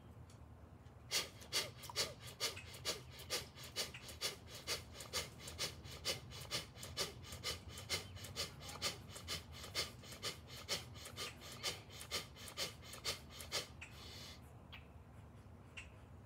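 Rapid, forceful rhythmic breaths of bhastrika/kapalabhati pranayama, about two sharp breaths a second. The set starts about a second in, ends with one longer breath near the end, and then stops for the observation pause between sets.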